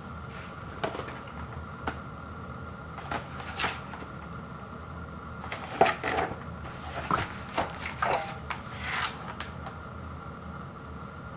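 Cardboard 12-can soda fridge-pack box being handled and opened: scattered taps, scrapes and rustles, busiest and loudest from about six to nine seconds in, over a steady faint electrical hum.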